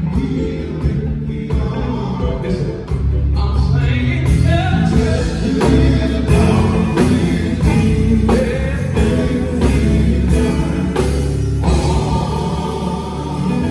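Live gospel music: a male lead singer with a male backing group, over keyboard, electric guitar and drums. The band comes in fuller about three seconds in, with a steady drum beat.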